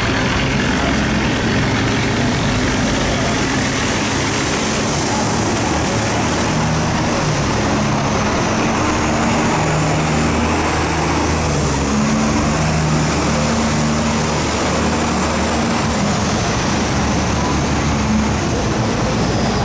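Diesel engines of riverboats and a sand barge running steadily as they pass close by, several engine tones at different pitches overlapping, over the rush of churning water from their wakes and the current through the sluice gate.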